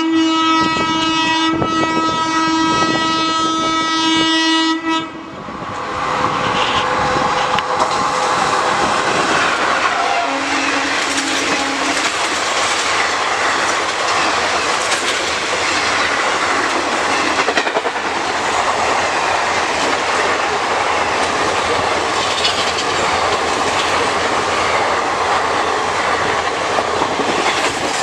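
A locomotive horn held for about five seconds as the express approaches, then the loud, steady rush of ICF passenger coaches passing at speed, their wheels clattering on the track.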